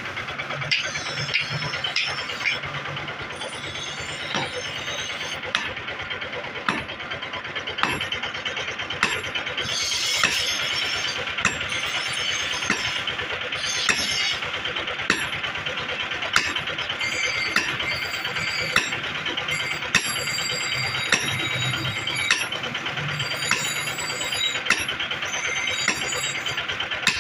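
Hammer blows on a red-hot hatchet head held on a steel anvil, a sharp ringing strike about once a second, over a steady mechanical hum and hiss.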